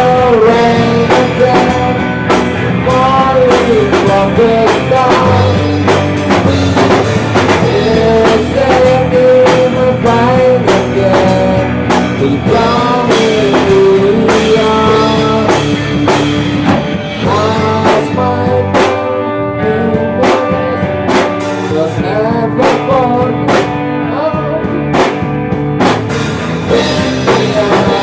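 A band playing rock music with drum kit and guitar, a lead melody line bending and sliding in pitch over the beat.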